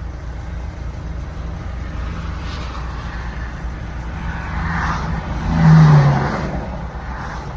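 Highway road noise over a steady low engine hum. A vehicle passes close by about five to six seconds in, swelling to the loudest point with a low tone that drops as it goes by.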